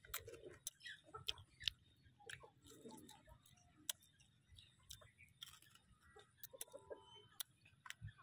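Faint, irregular mouth clicks and smacks of someone biting and chewing food close to the microphone.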